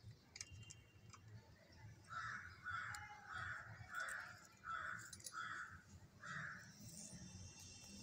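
Alexandrine parakeet giving a series of seven short calls, evenly spaced about two every second, starting about two seconds in.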